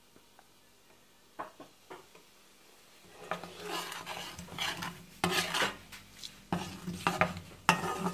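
A metal spoon stirring and scraping a thick spice paste in a stainless steel pot: a few light clinks at first, then from about three seconds in a run of repeated scraping strokes with sharp knocks against the pot.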